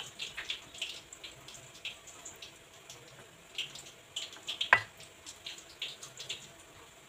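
Silicone spatula stirring and lifting pieces of eggplant in a thin coconut-milk sauce on a ceramic plate: a run of small wet clicks and squelches, with one sharper knock about five seconds in.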